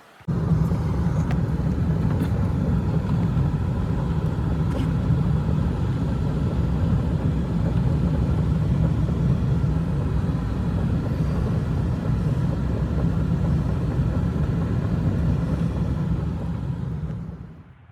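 A loud, steady low rumble that starts abruptly and fades out near the end.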